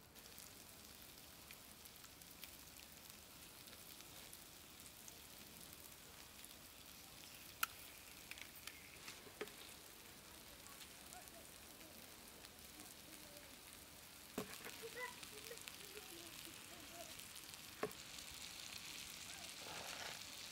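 Halved boiled eggs frying in oil on a flat tawa: a faint, steady sizzle with scattered pops and crackles and a few sharp ticks, growing a little louder toward the end.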